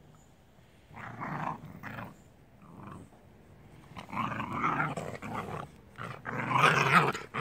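Jindo dogs, an adult and a puppy, growling in play-fighting. The growls come in several rough spurts starting about a second in, and the longest and loudest is near the end.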